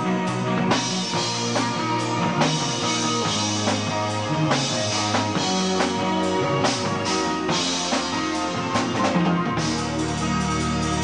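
Live rock band playing, with the drum kit prominent over electric guitar and bass. A low held note comes in near the end.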